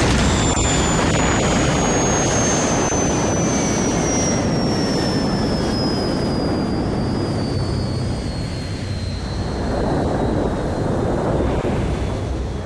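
Jet engine of a jet-powered land-speed car, a loud roar with a high whine that falls steadily in pitch over about ten seconds. The roar eases slightly near the end.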